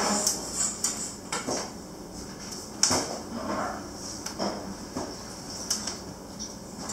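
A metal pizza peel clicking and scraping against the floor and mouth of a wood-fired pizza oven while a pizza is worked inside: a run of irregular sharp knocks and short scrapes, the loudest a little under three seconds in.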